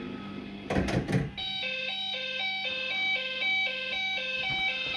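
Firecracker fruit machine playing its electronic sound effects: a fast, evenly repeating tune of alternating beeping notes that starts about a second and a half in, after a brief clatter.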